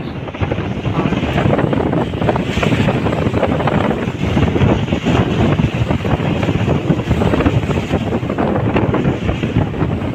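Wind rushing past and buffeting the microphone from a moving vehicle, loud and rough, with road noise from the vehicle underneath.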